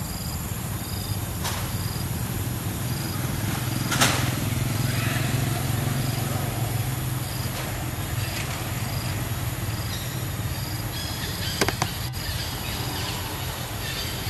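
Outdoor ambience: a steady low hum with a short, high chirp repeating a little more than once a second. A sharp click comes about four seconds in, and two quick clicks near the end.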